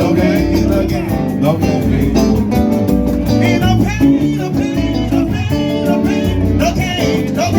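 Live band music with a steady beat, bass and guitar, with a voice singing over it.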